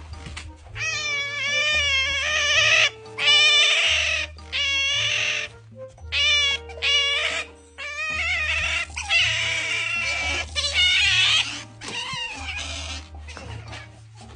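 A domestic cat meowing and yowling in a string of long, wavering calls, over background music with a steady bass line.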